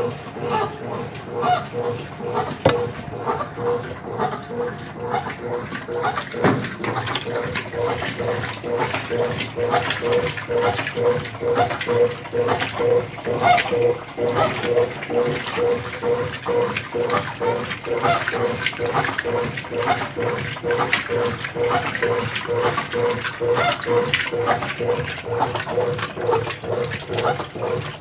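Brastemp BWC10 10 kg top-loading washing machine in its rinse, its agitator churning the clothes back and forth in water. The sound is a rhythmic pulsing hum of about two to three beats a second over steady sloshing water.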